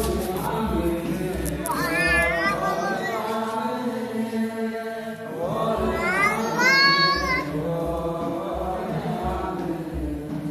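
A congregation of many voices chanting a liturgical melody in unison at an Orthodox church service, the phrases rising and settling on long held notes.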